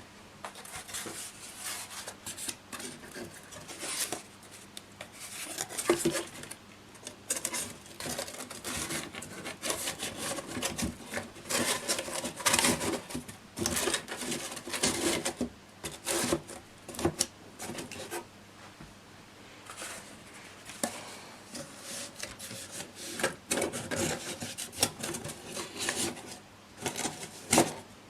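Hands handling household objects, with irregular rubbing and scraping and light clicks and knocks as things are slid and set down.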